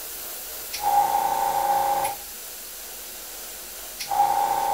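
Iwata makeup airbrush spraying in two bursts of about a second each, each starting with a click as the trigger opens, the air jet carrying a steady tone over a hiss. A faint steady hiss runs between the bursts.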